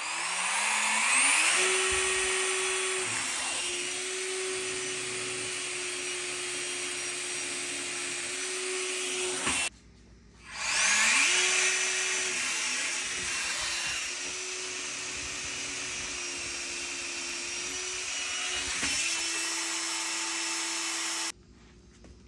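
Suction fan of an RC fan car spinning up with a rising whine, then running steadily with a rush of air. It cuts out about ten seconds in, spins up again, and stops abruptly near the end.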